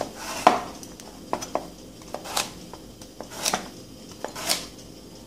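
Kitchen knife slicing through a peeled raw carrot and knocking on the cutting board, a slow series of cuts about one a second with lighter clicks between.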